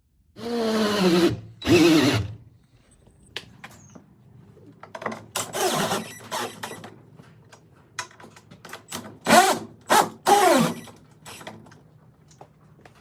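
Power drill boring or driving lag screws into hard oak in about five bursts, its motor pitch dropping as it bogs down under the load, with sharp clicks between bursts. The drill is straining and burning out on the tough oak.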